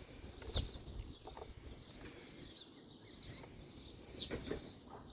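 Faint birdsong, short high chirps and a brief warble, with a few light knocks and clicks of small parts being handled, the loudest about half a second in and another around four seconds in.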